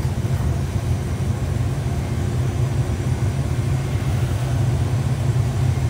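Steady low roar of the glassblowing shop's furnace and glory hole running at working temperature.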